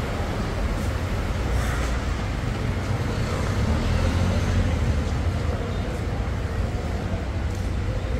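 Steady road traffic noise with a deep engine rumble that swells about four seconds in.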